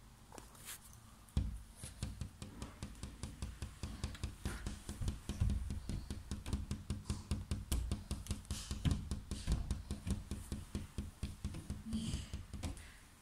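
Rapid irregular tapping and rubbing close to the microphone, several knocks a second, starting about a second and a half in and stopping just before the end.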